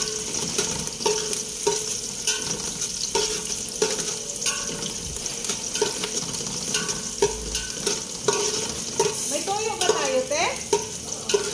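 Food frying in a metal pan: a steady sizzle, while a metal spatula stirs and knocks against the pan with short ringing clinks about every two-thirds of a second. This is the sound of ingredients being sautéed and stirred for pansit.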